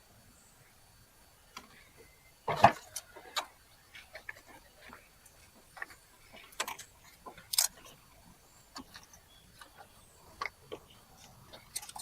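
Irregular metallic clicks, ticks and knocks of hand tools working on car parts, with one louder clank about two and a half seconds in.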